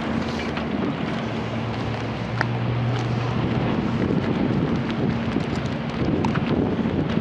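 Diesel engine of a Doosan DX160W wheeled excavator running steadily, with a lower hum joining for a second or two about two seconds in. Heavy wind noise on the microphone runs over it.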